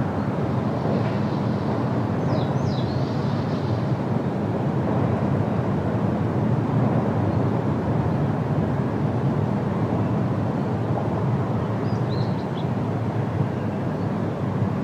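The Rhine Falls' water crashing down in a loud, steady roar. A few short high chirps come through twice, once early and once near the end.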